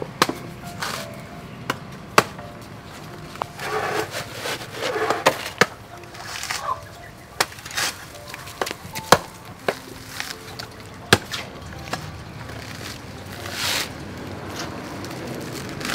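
Sharp, irregular knocks, a hand tool striking a coconut husk, mixed with the scrape of a trowel digging into potting soil.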